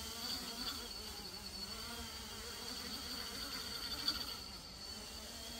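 GEPRC EF10 10-inch FPV quadcopter's motors and propellers buzzing in a hover, the pitch wavering up and down as the drone hovers unsteadily and vibrates with no payload; the fliers suspect a sticking motor bearing.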